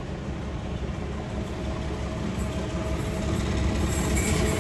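NSW 45 class diesel locomotive 4501 running in towards the platform, its engine rumble growing steadily louder as it approaches.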